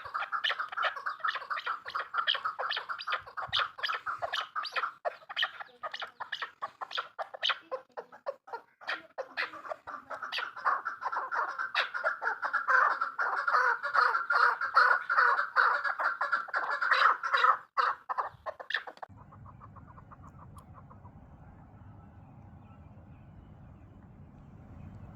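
Chukar partridge calling in a fast run of repeated clucking notes. The calling stops abruptly near the end, giving way to a much quieter steady low hum.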